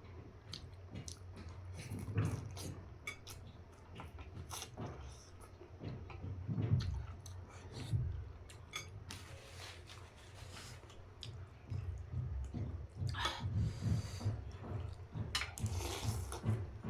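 Close-up eating of noodles in soup: wet chewing with many small mouth clicks, and a few longer slurps of noodles or broth.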